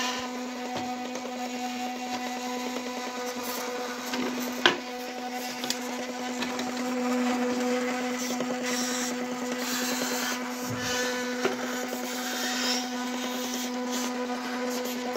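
Homemade PET-bottle filament maker running: its small electric drive motor hums steadily while the plastic strip rubs and scrapes as it is pulled onto the geared spool. There is one sharp click about four and a half seconds in.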